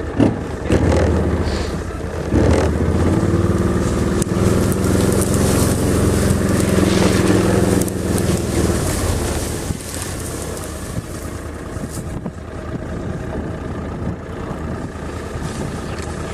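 A motor engine running close by, louder for the first nine seconds or so, then settling to a lower, steadier hum.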